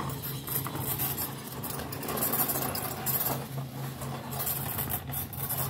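Toy bubble lawn mower running, its small motor giving a steady low hum, with a rattly clatter as its plastic wheels roll over concrete.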